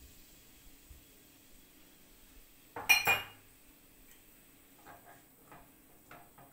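A single sharp clink of a utensil or dish against the stainless steel pot about three seconds in, ringing briefly. Then a few soft clicks as a utensil stirs chopped onions in the pot.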